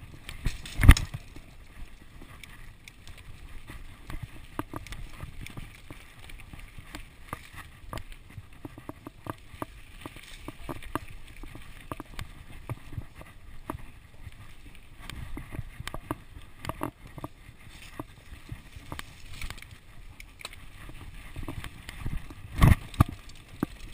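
Ellsworth Evolve full-suspension mountain bike ridden fast over a rough dirt trail: tyres rolling on dirt, with the chain and frame rattling and frequent small knocks throughout. There are two hard knocks, one about a second in and another near the end.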